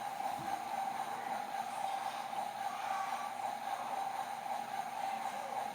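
Toy washing machine on its spin cycle, giving a steady whirring hum with one held tone.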